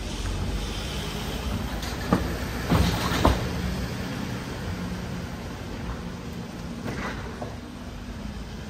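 Mercedes-Benz Sprinter minibus engine running as it drives slowly through a narrow stone street. A few loud clacks come about two to three seconds in, and one more near seven seconds.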